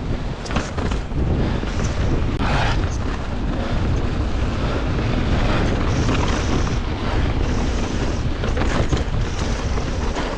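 Wind buffeting a GoPro's microphone on a fast mountain-bike descent, a dense low rumble, with the tyres rolling over loose dirt and a few short knocks from the bike.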